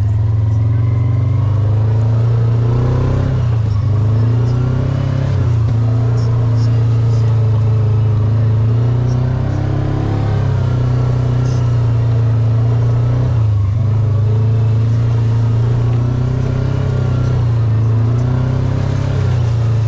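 Vehicle engine running steadily while riding, the revs rising and easing a few times.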